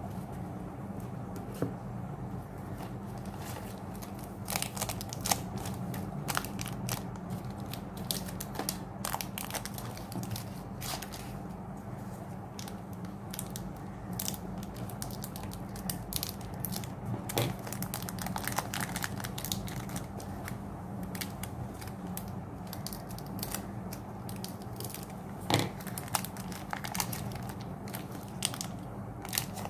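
Crackling and crinkling of foil Pokémon booster-pack wrappers being handled and slit open with a hobby knife, with playing cards shuffled in the hand, in many short irregular rustles and clicks. A steady low hum runs underneath.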